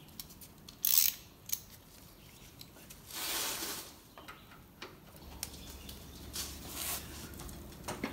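Hand ratchet with a 9/16 socket being worked on a tractor's oil drain plug: a short burst of ratchet clicks about a second in, then metal scraping and rubbing from about three to four seconds in and again briefly near seven seconds. The plug is stuck far tighter than it should be.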